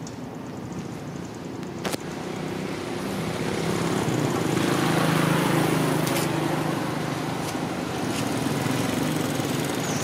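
A small engine running steadily, its hum swelling over the first few seconds and then holding, with a sharp click about two seconds in.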